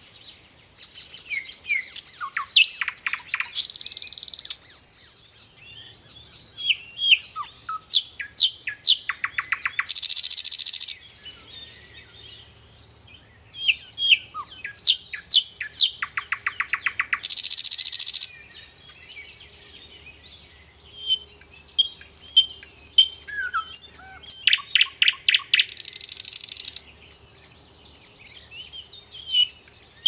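Common nightingale singing: loud phrases a few seconds apart, each a run of rapid repeated notes and falling whistles ending in a harsh buzzy trill.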